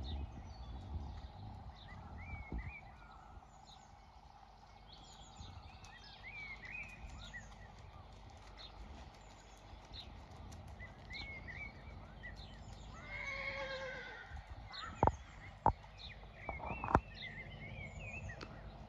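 A horse whinnies once, a wavering call about two-thirds of the way through, over birds chirping; three sharp knocks follow shortly after.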